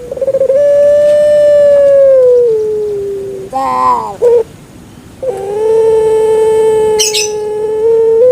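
Puter pelung dove (Streptopelia risoria) calling: a quick trill, then a long drawn-out note that slides slowly down in pitch. A short broken note follows about three and a half seconds in, then a second long, steady note from about five seconds in.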